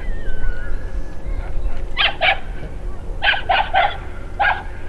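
A dog barking six times in short sharp barks: a pair, then a quick run of three, then one more, over a low rumble.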